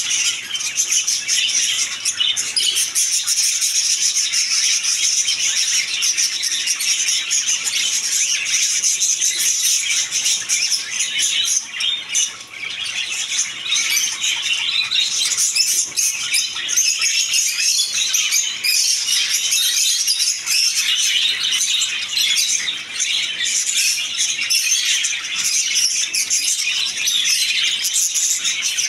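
A roomful of caged budgerigars chattering and chirping together, many short calls overlapping in a dense, unbroken chatter.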